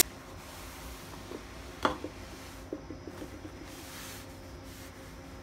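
A few light knocks and clicks from handling at a stainless steel kitchen sink, over a faint steady hum. The loudest knock comes about two seconds in.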